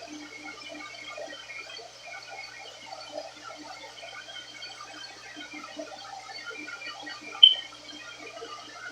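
Turbo Styler hair dryer running on warm air, a steady rushing blow of air with a low motor hum. About seven and a half seconds in there is one brief, sharp high-pitched blip.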